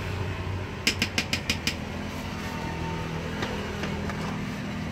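A spoon tapped quickly about six times against a plastic blender jug, knocking scooped avocado into it. A steady low hum runs underneath.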